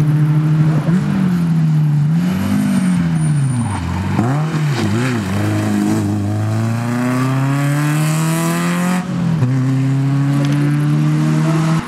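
Rally car engine running hard as it passes. The revs dip and swing back several times as the driver lifts and changes gear, then climb steadily for a few seconds. About nine seconds in the note changes abruptly to a steady held pitch.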